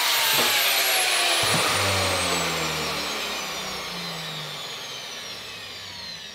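Angle grinder with a thin metal-cutting disc winding down after the trigger is let go, its whine falling steadily in pitch and fading. A few knocks from a cut-out piece of the van's sheet-metal wall being handled.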